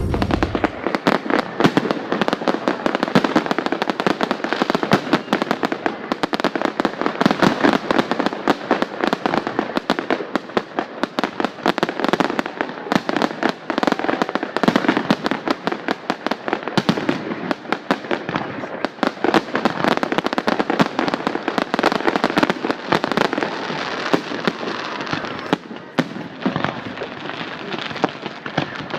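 Fireworks display: a dense, continuous barrage of bangs and crackling shell bursts.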